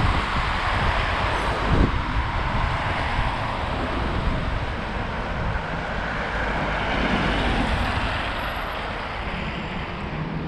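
City street traffic: a steady rush of passing cars with low engine rumble, and a couple of short thumps in the first two seconds.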